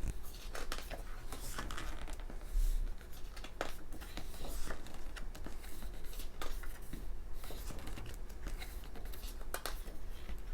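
Pages of a photo book being turned and handled: irregular paper rustles and small taps, with one dull bump about two and a half seconds in.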